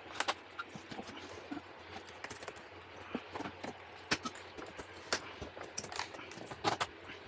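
Light, irregular clicks and taps on a freshly laid porcelain tile floor, with a few sharper knocks about four, five and nearly seven seconds in.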